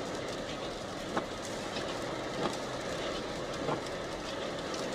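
A 2014 Jeep Grand Cherokee driving through snow: a steady rush of tyre and road noise, with a light knock about every second and a quarter.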